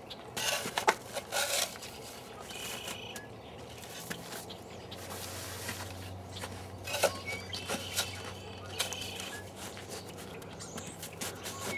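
Red metal ride-on sandbox digger worked by hand, its bucket scraping and scooping packed snow in irregular bursts, with sharp clicks from the metal arm and bucket.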